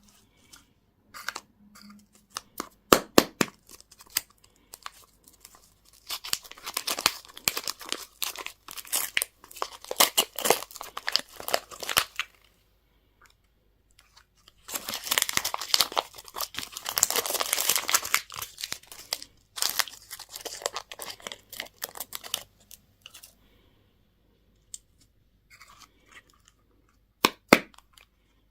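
A candy wrapper being torn open and crinkled by hand in two long crackling stretches, with a few sharp clicks and taps before and after.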